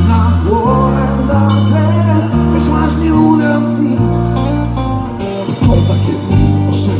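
Live band performing: a male voice singing over keyboard, acoustic guitar and drums, with sharp drum and cymbal hits in the last couple of seconds.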